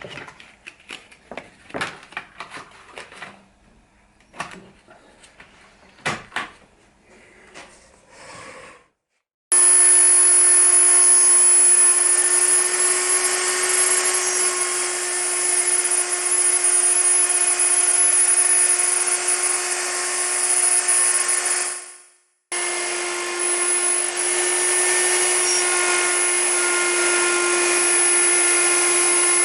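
Several irregular scraping strokes and knocks, then an electric router starts and runs at a steady high speed with a whine. It stops for a moment about two-thirds of the way through and starts up again.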